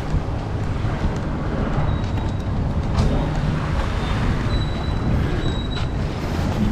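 Wind buffeting the microphone over the wash of small surf, a steady low rumbling noise. Faint high thin tones come through briefly a couple of times.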